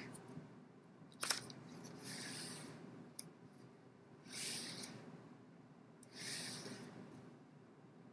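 Pages of a handmade picture book being turned one after another: a papery swish about every two seconds, three in all, with one sharp click a little over a second in.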